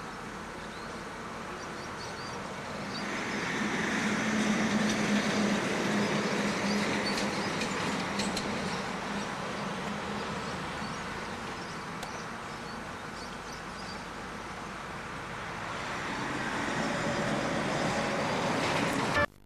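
Wind rushing steadily, swelling a few seconds in and again near the end, with a low steady hum underneath during the first half.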